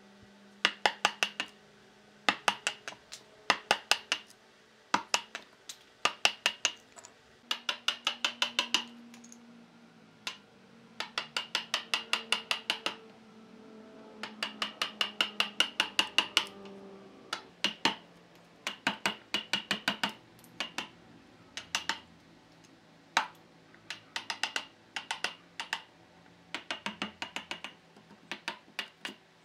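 A steel chisel being struck in quick runs of sharp, ringing taps, about five a second with short pauses between runs, as it chops a notch into a log and splits off the wood.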